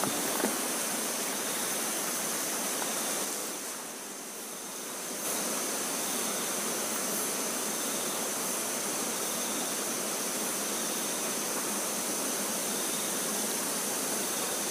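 Fast-flowing river current rushing steadily, a little quieter for about a second around four seconds in, with a thin steady high-pitched tone over it.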